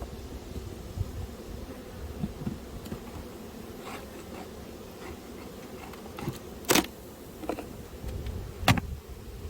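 Honeybees buzzing around an open hive, a steady low hum, with a few sharp knocks, the loudest two near the end.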